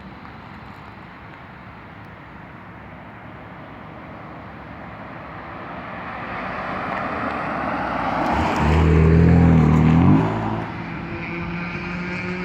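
Stock BMW M4 F82 engine, a twin-turbo inline-six, growing steadily louder, then accelerating with a rising engine note from about eight and a half seconds in. The note cuts off suddenly about ten seconds in, and the engine runs on more quietly and steadily.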